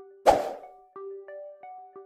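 Light background music of short, separate notes, with one sudden sound effect about a quarter second in that fades within half a second.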